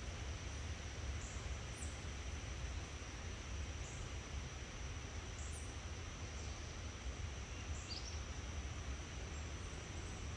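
Forest ambience: a steady high insect drone with a few short, high bird chirps every couple of seconds, over a low steady rumble.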